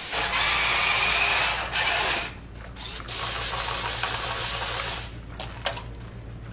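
Small geared electric motors on a tracked robot whirring as it tilts its arm. There are two runs of about two seconds each with a short pause between them, and the second carries a steady high whine.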